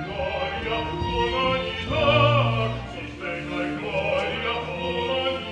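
Orchestral classical music with an operatic voice singing.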